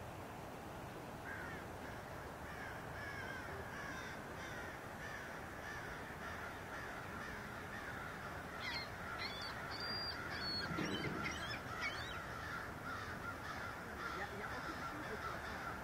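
Many birds calling over one another, a dense overlapping chorus of short calls, joined by a few higher whistled notes around the middle.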